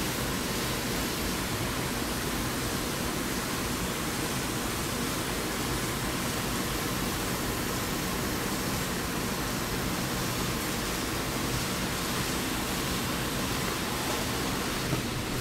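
A steady, even rushing hiss with a faint low hum underneath, unchanging throughout.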